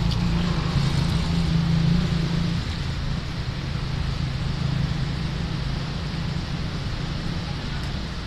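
An engine running steadily, its pitch dropping lower about two and a half seconds in.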